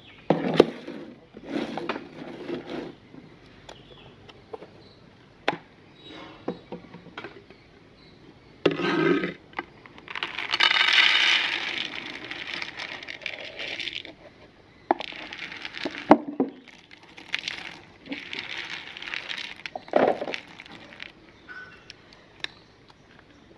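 Shelled roasted peanuts poured from a plastic container onto a plate: a rattling rush of nuts lasting a few seconds, starting about ten seconds in. Scattered sharp knocks and clinks of things handled and set down on a wooden table come before and after.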